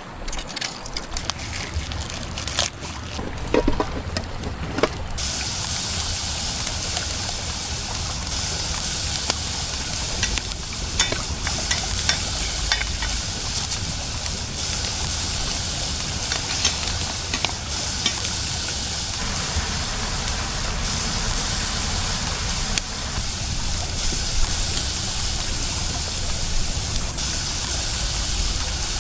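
Food frying and sizzling in a pan over a campfire: a steady high sizzle with scattered crackles. It begins about five seconds in, after a few clicks and knocks.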